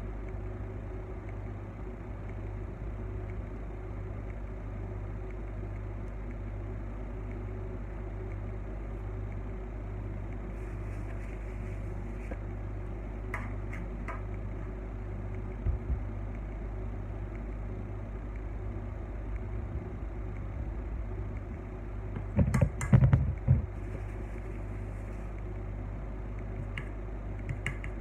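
Steady low machine hum of room tone, with a few light clicks and, about four-fifths of the way through, a short cluster of knocks from things being handled on the work table.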